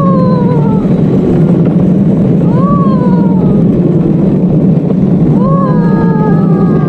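A luge cart's wheels rolling down an asphalt track with a loud, steady rumble. Over it a rider gives three rising-then-falling whoops, the last one drawn out.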